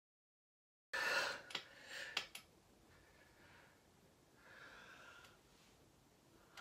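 A woman breathing deeply: a sharp intake of breath about a second in, then slow, faint breaths out.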